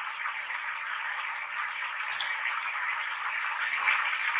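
Steady background hiss with no speech, and one faint click about two seconds in.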